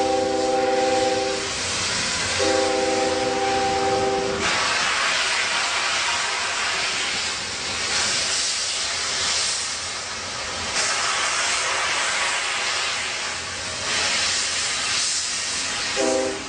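Locomotive whistle sounding a chord of several tones in two blasts of about two seconds each, then a steady rushing hiss of the moving train, with another whistle blast starting near the end.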